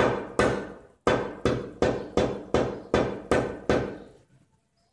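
Stone pestle striking a tablet inside a stone mortar about ten times, at roughly two to three blows a second, each with a short ring. The blows are meant to crack the green coating off a vitamin tablet. Two blows come first, then a short pause, then a steady run of eight that stops near the end.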